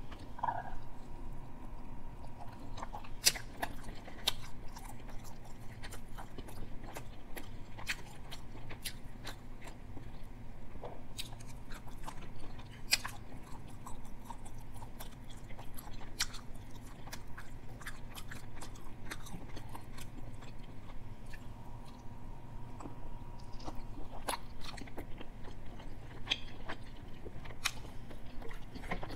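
A person chewing a mouthful of teriyaki chicken close to the microphone, with scattered sharp wet mouth clicks and smacks.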